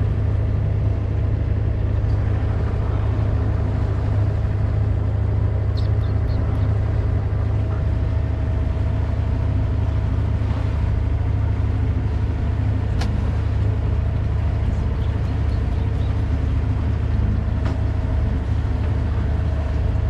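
Sailing yacht's inboard engine running steadily while motoring, a constant low rumble with a faint hum above it.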